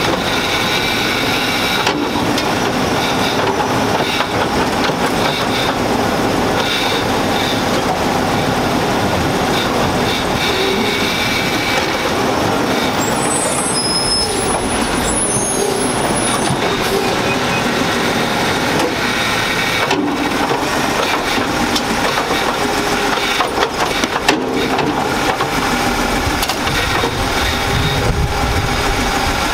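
Autocar garbage truck with a New Way automated side-loader body, its diesel engine running steadily while the truck creeps forward to the next cart. Near the end the hydraulic arm reaches out and grabs a cart.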